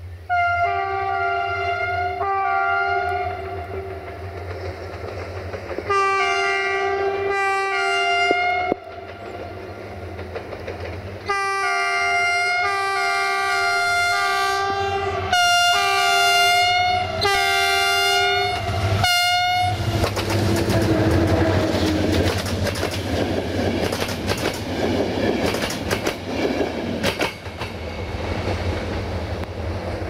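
Diesel locomotive GM 64-1125-5 sounding its multi-tone horn in a long show of blasts, long ones and quick short ones in changing rhythm, for nearly twenty seconds as it approaches, with its diesel engine rumbling underneath. Then the train passes, its engine running and its wheels clicking over the rail joints.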